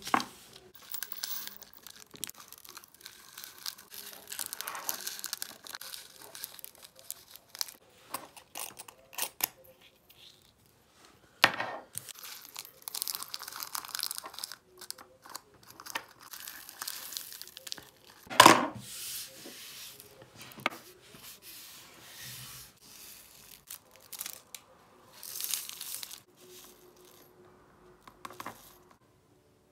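Small plastic bags of diamond painting drills crinkling and being torn open, and the tiny drills poured from a plastic tray into small glass jars with aluminium screw lids, with scattered clicks and one louder knock about eighteen seconds in.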